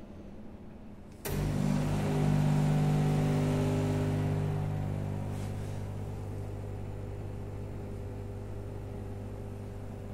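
Coffee vending machine dispensing: with a click about a second in its motor starts humming steadily, loudest over the next few seconds and then slowly easing off, while coffee streams into the cup.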